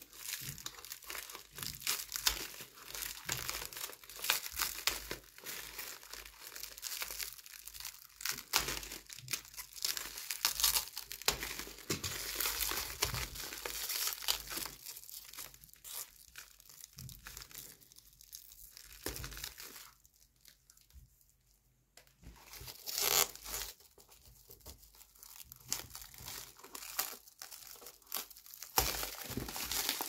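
Plastic parcel wrapping and packing tape crinkling and tearing as a utility knife slits the package open and hands pull at it; irregular crackling with a short lull about two-thirds of the way through.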